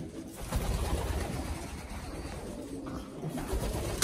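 Domestic pigeons cooing.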